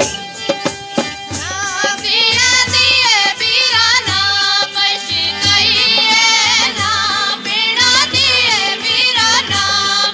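Two women singing a Gojri folk song together into a handheld microphone, their melody wavering and ornamented, over a steady drum beat. For about the first second and a half the drum plays alone before the voices come in.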